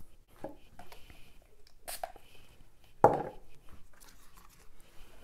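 Close handling noises of a makeup brush being worked in an eyeshadow palette: scattered soft clicks and scrapes, with one louder knock about three seconds in.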